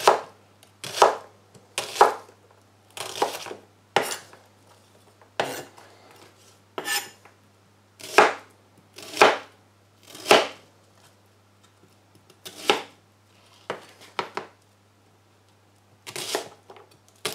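Kitchen knife chopping an onion on a plastic chopping board: single cuts at an uneven pace of about one a second, some in quick pairs, each a knock of the blade on the board. A faint steady low hum runs underneath.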